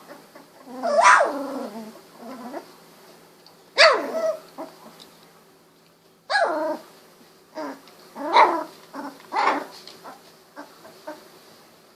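Sixteen-day-old Golden Retriever puppies giving about five short, high yelps and small barks, several falling in pitch, a few seconds apart.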